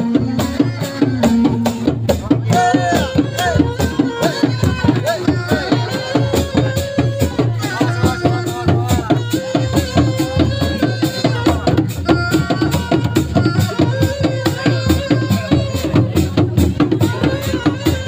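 Seni reak ensemble: dogdog hand drums beaten in a fast, dense, continuous rhythm, with a held melody line stepping from note to note above the drumming.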